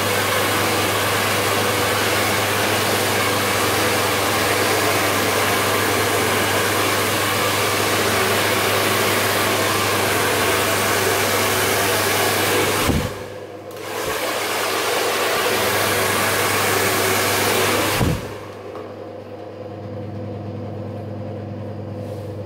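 Handheld hair dryer blowing at full power. It cuts out briefly about 13 seconds in, comes straight back on, then is switched off about 18 seconds in, its motor winding down, leaving a steady low hum.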